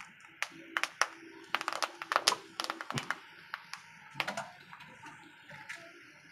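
Banana-leaf parcel crackling on a hot stone pan: irregular sharp ticks and pops as it starts to roast.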